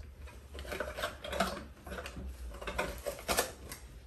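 Paper and cardboard packaging rustling and clicking as instruction leaflets are pulled out of a small camera box, with a sharper tap a little past three seconds in.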